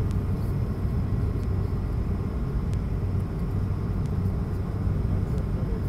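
Steady engine and airflow noise inside the cabin of an Airbus A220-300 on approach, a low hum from its Pratt & Whitney PW1500G geared turbofans.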